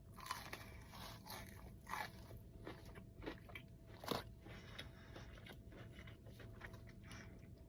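Close-up eating: biting into and chewing a crispy fried chicken tender, with scattered soft crunches and mouth clicks and one louder crunch about four seconds in.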